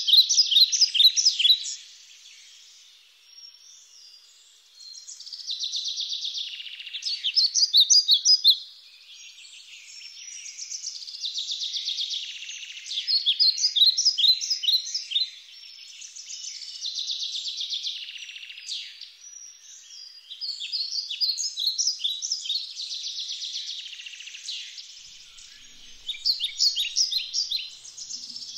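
Birds chirping and twittering in a dense chorus, with louder runs of rapid chirps every few seconds.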